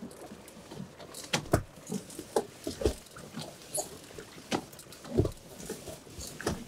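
Small waves slapping against the hull of an inflatable boat, with irregular knocks and low thumps every second or so.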